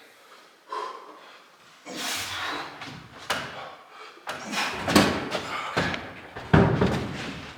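Knocks, thumps and scraping as a heavy load is lifted off the floor and shifted, with the loudest bangs about five and six and a half seconds in.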